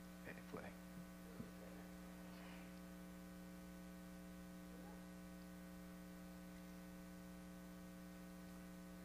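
Near silence over a steady electrical mains hum, with a few faint clicks in the first second and a half.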